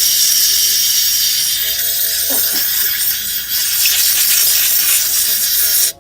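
Compressed air blowing in a loud, steady hiss, drying a freshly etched and rinsed e.max porcelain crown. It cuts off suddenly near the end.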